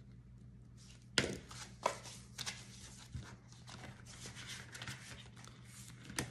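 Paper bills and a plastic binder pocket rustling and crinkling as the cash is handled and the binder pages are turned, with a few light knocks on the table, the loudest about a second in.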